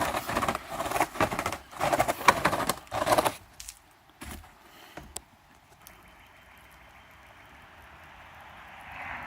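Soft-bristled brush scrubbing wet, soapy vinyl siding in quick strokes, about three a second, stopping after about three seconds. A few light knocks and a faint steady hiss follow.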